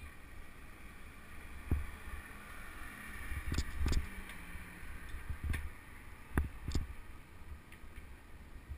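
Bicycle rolling along a paved sidewalk: a steady low rumble from the tyres and frame carried into the camera, with several sharp knocks as the wheels hit bumps and paving joints.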